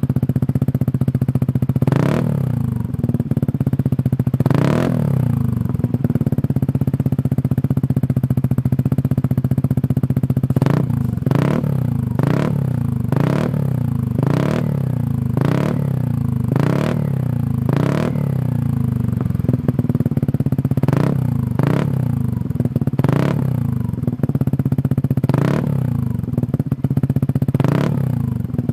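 Motorcycle fitted with a Shijiro aftermarket racing exhaust idling, with two throttle blips early on and then quick blips about once a second from about a third of the way in.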